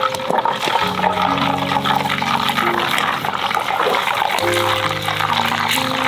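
Chicken karaage deep-frying in hot oil in an aluminium mess tin, a dense, steady sizzle and crackle. Background music plays over it.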